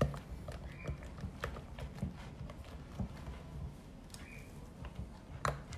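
Spatula stirring thick ganache in a glass mixing bowl, knocking and scraping against the glass in irregular light clicks, with a sharper knock near the end.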